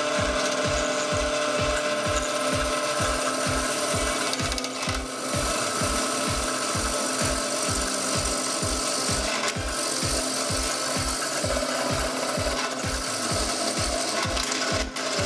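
Drill press running, its twist bit cutting through a steel strip with a steady scraping cut over the motor's hum. A low thump repeats evenly about three times a second underneath.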